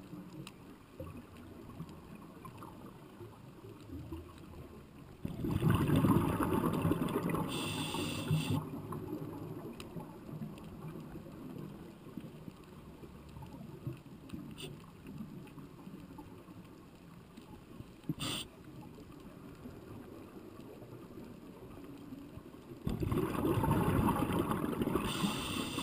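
Muffled underwater sound with two loud bursts of bubbling, one about five seconds in and one near the end, each lasting around three seconds: a diver exhaling.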